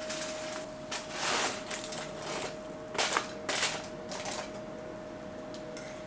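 Chopsticks scraping and tapping against a foil-lined frying pan as cooked egg is pushed out into a ceramic bowl, with irregular clatters and foil crinkling. A faint steady hum runs underneath.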